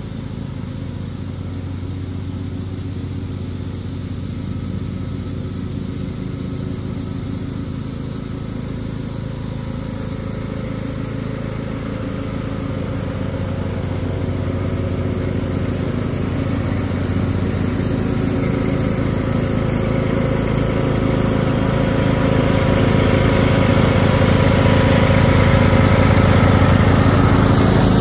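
Riding lawn mower engine running steadily while cutting grass, growing louder as the mower drives closer and passes close by near the end.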